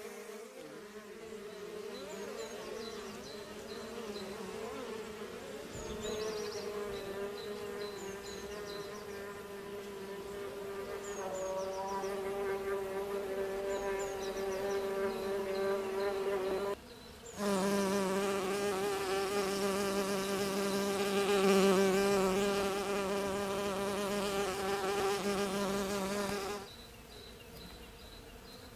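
Bees buzzing: a steady drone that wavers slightly in pitch and grows louder through the middle. It cuts out for a moment a little past halfway and turns much quieter for the last couple of seconds. Faint short high chirps repeat now and then in the first half.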